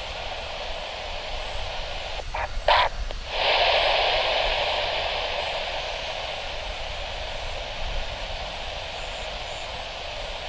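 Air traffic control radio feed hissing with static. A little over two seconds in come a few quick clicks, then a louder rush of hiss as a transmission is keyed with no voice, fading away over the next few seconds.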